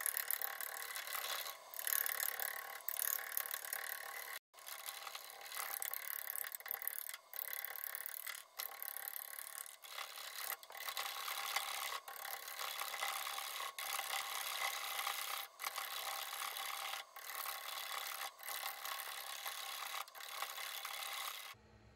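Bowl gouge cutting the outside of a spinning willow bowl blank on a wood lathe: a steady, hissing shear of wood, broken by brief gaps every one to two seconds. It stops abruptly near the end.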